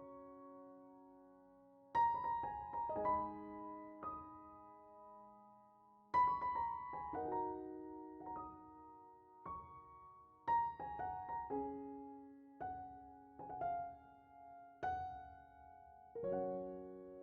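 Slow background piano music: single notes and chords struck in sparse phrases and left to ring out, with short pauses between phrases.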